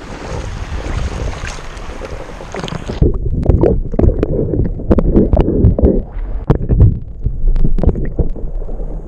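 Wind and shallow surf on an action camera's microphone, then about three seconds in the camera goes under the water: the sound turns muffled and louder, a low sloshing and gurgling with many sharp clicks and knocks.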